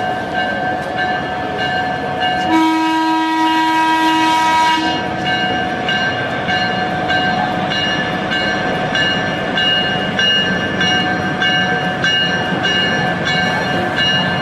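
A steam locomotive's whistle sounds one long blast, about two and a half seconds, a couple of seconds in. Steady train running noise continues underneath.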